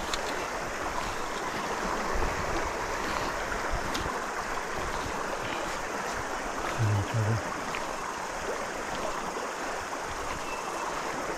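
Steady rush of a backcountry forest river flowing past, with a brief low murmur of a man's voice about seven seconds in.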